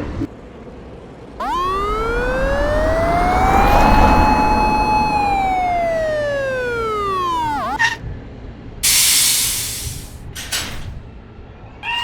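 A siren-like whine that rises in pitch for a few seconds, holds, then falls away before cutting off. A short burst of hiss follows, then two briefer hisses.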